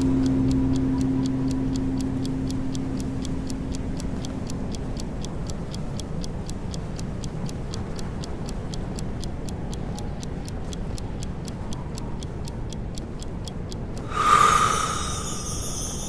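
Rapid, even ticking like a clock or timer counting off the breath hold, over a steady rushing snowstorm-wind ambience. A low ringing tone fades out over the first few seconds, and a sudden loud swell comes near the end.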